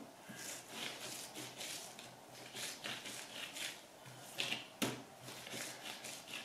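Hands rolling a rope of pelmeni dough back and forth on an oilcloth tablecloth: faint, repeated soft swishing, with a couple of light knocks a little past halfway.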